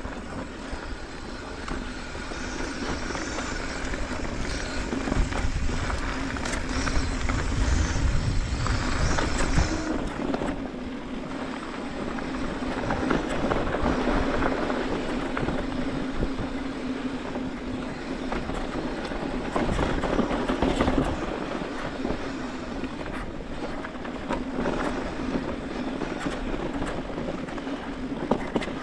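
A vehicle running steadily, its engine hum holding one pitch throughout, with rough rumbling noise that swells and fades several times.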